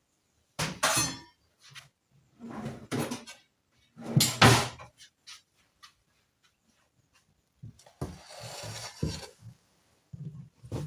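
Kitchenware being handled: several knocks and clatters of dishes and lids, the loudest about four and a half seconds in, then a short scraping stretch and a few soft bumps.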